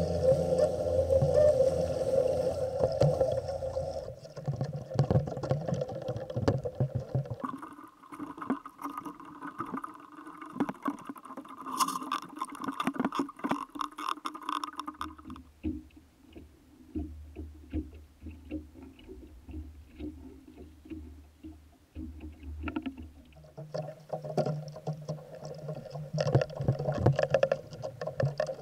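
Small skiff's outboard motor running, its pitch shifting as the throttle changes. It settles to a low idle about halfway through and picks up again near the end.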